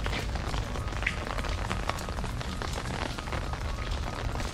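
Ice-storm precipitation, freezing rain and ice pellets, falling: a steady hiss dotted with many small sharp ticks, over a low rumble.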